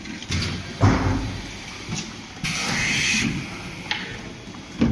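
Pickle being loaded into a stainless steel hopper by hand and with a plastic scoop: a few knocks and thumps against the steel, with a scraping, hissing stretch of about a second around halfway through.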